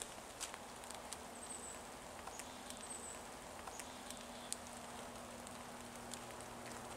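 Footsteps through dry grass and leaf litter on a forest trail: soft, irregular crunches and rustles, with a few faint high-pitched chirps in the first half.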